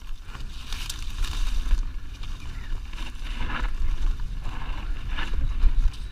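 Wind buffeting the microphone of a helmet-mounted action camera as a mountain bike descends a rough dirt trail at speed, a deep steady rumble with short knocks and rattles from the bike over bumps, the loudest one near the end.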